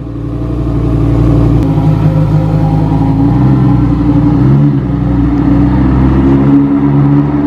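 Lamborghini Huracán Performante's V10 engine running at low revs as the car pulls away slowly: a steady, deep engine note with a few small rises in pitch.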